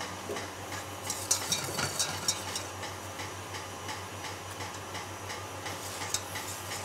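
Balloon whisk clicking and scraping against a stainless steel bowl as softened gelatin leaves are stirred into warm raspberry puree. The clicks come in clusters about a second in and near the end, over a steady low hum.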